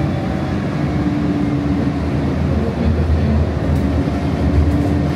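Cabin ride noise of a Siemens S700 light-rail car running along the track: a steady rumble of wheels on rails, with a faint steady tone that shifts slightly in pitch partway through.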